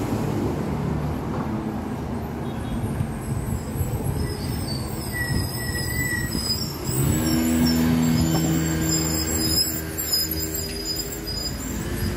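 Street traffic noise. About seven seconds in, a nearby motor vehicle's engine comes up as a steady hum and holds for several seconds before easing off near the end.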